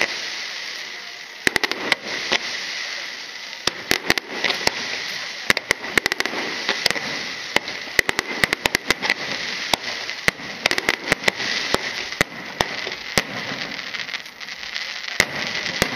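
Aerial fireworks display: shells bursting in many sharp bangs over a dense, continuous crackle.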